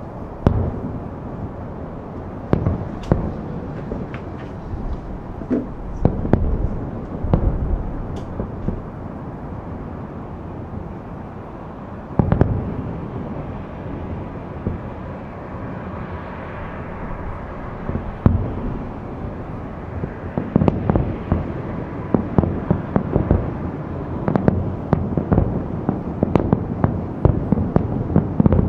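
Aerial firework shells bursting about 2.5 km away, each one a sharp boom over a steady rolling rumble. Single booms come a few seconds apart at first, with one loud boom just after 12 seconds, and from about 20 seconds in they come in a rapid barrage.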